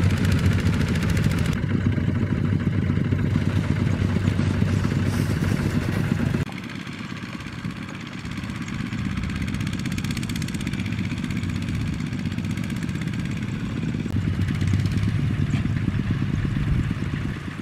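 Single-cylinder diesel engine of a two-wheel power tiller running under load as it drags a trailer of rice sacks through sticky mud, with a rapid, even firing rhythm and some clatter. About six seconds in, the sound drops abruptly to a quieter run of the same kind of engine.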